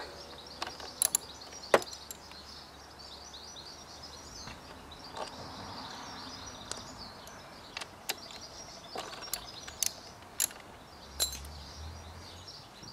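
Scattered sharp metallic clicks and taps of a ratchet and socket working the front brake caliper bolts loose on a Kawasaki ZX6R, about nine in all. Birds chirp steadily in the background.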